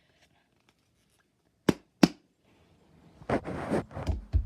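Two sharp clicks, then about a second of rustling handling noise with a low thump near the end: small objects being picked up and handled at close range.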